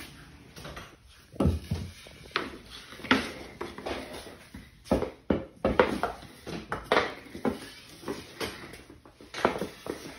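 Goalie stick blade knocking an orange street hockey puck around on a concrete floor: a dozen or so irregular clacks and taps, with a duller, heavier thud about a second and a half in.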